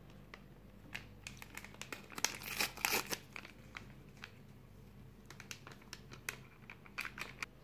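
Paper sachet of Alsa baking powder being crinkled and torn open: a faint run of small crackles and a tear, thickest about one to three seconds in, then sparser crinkles as the packet is handled over the flour.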